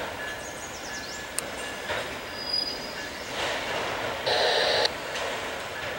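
Freight train of autorack cars rolling past, its steel wheels squealing with thin high tones over the steady rumble of the cars, with a couple of sharp clanks. About four seconds in comes a louder, harsh half-second screech.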